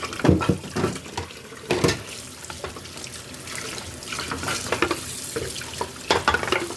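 Water running from a kitchen tap into a sink, with repeated clinks and knocks of utensils and dishes being handled under it.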